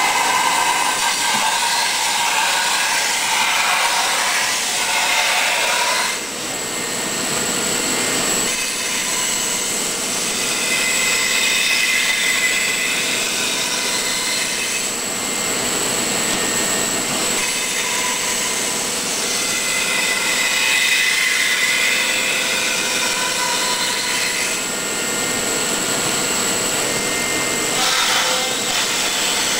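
Milling machine spindle running, its end mill cutting into a styrofoam block: a steady machine noise with a constant high whine and a higher cutting tone that swells and fades as the cutter moves through the foam.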